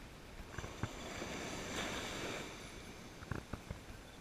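Faint wind and ocean surf on the beach, with a few small clicks: twice about half a second in and twice past three seconds.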